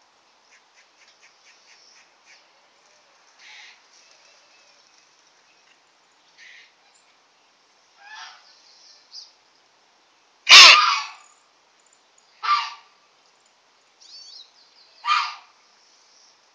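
A capybara giving short, gruff alarm barks at a cat: a few faint ones, then three loud barks about two seconds apart in the second half, the first the loudest. A quick run of faint high chirps in the first two seconds.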